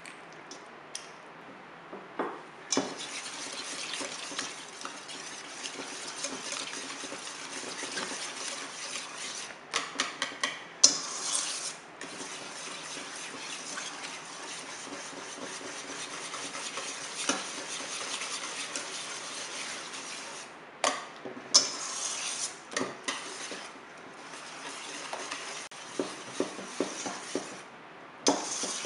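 Wire whisk beating a thick batter in a stainless steel mixing bowl, making a steady scraping, stirring sound. Sharp metallic clinks against the bowl come in a cluster about ten seconds in and again a little past twenty seconds.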